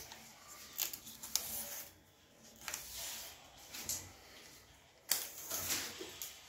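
Hands pressing and rubbing along a plastic cable raceway to stick it, with its double-sided tape, under a kitchen cabinet: a series of short, irregular scraping and rustling swishes, the longest cluster about five seconds in.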